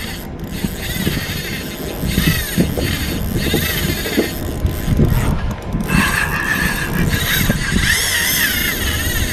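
Spinning reel's drag buzzing as a hooked fish pulls line off against it, growing stronger and higher about six seconds in as the fish runs.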